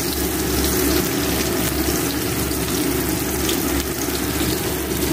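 Potato, bitter gourd and taro pieces frying in oil in a wok: a steady sizzle with faint scattered crackles.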